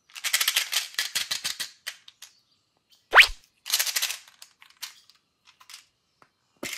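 Hard candy-coated chocolates rattling and clicking against each other inside a small clear plastic tube as it is handled, in quick dense runs. About three seconds in comes one loud, short sound that sweeps sharply upward in pitch, followed by more rattling and a few scattered clicks.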